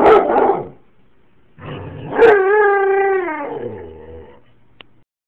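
German shepherd dog barks once, then lets out a long howl that holds its pitch for about a second and then slides down and fades.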